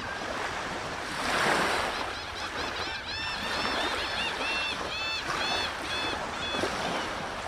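Water rushing in slow swells like surf, with a bird calling a quick series of short ringing notes, about three a second, from about two seconds in until near the end.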